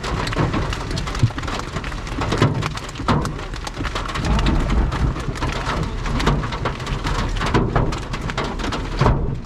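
Large hailstones pounding a vehicle in a severe thunderstorm: dense, irregular hard impacts over a steady rush of wind and rain.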